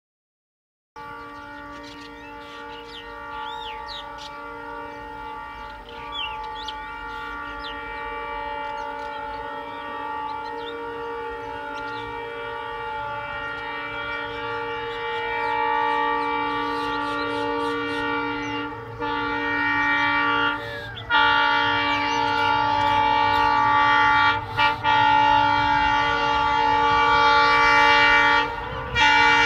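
Horn of an approaching WDP-4D diesel locomotive sounding in a long, nearly continuous blast, broken briefly a few times in the second half, with a low train rumble beneath it. Both grow steadily louder as the train closes in. Birds chirp faintly in the first few seconds.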